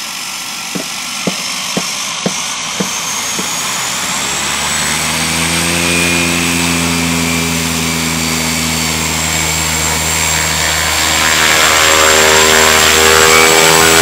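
Air Tractor 502 crop duster's turboprop engine and propeller running as the aircraft taxis close by: a steady high turbine whine over rushing air, with a deep propeller drone setting in about four seconds in and growing louder near the end as the plane turns toward the microphone. About six sharp clicks, roughly two a second, sound in the first few seconds.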